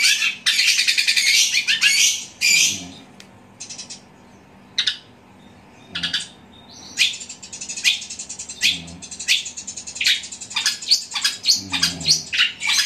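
Caged long-tailed shrike singing loudly in fast, harsh chattering strings, mimicking the squabbling calls of fighting tree sparrows. The chatter breaks off into a few single notes for a few seconds, then picks up again in rapid runs about seven seconds in.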